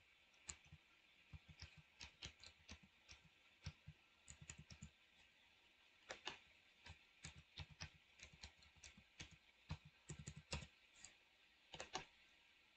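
Faint keystrokes on a computer keyboard, typed in two quick, irregular runs with a short pause about five seconds in.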